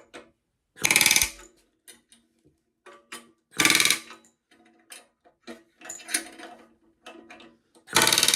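Rivet gun driving solid rivets into sheet metal: three short bursts of rapid hammering, a little rat-a-tat-tat, each about half a second long, with light metal clinks between.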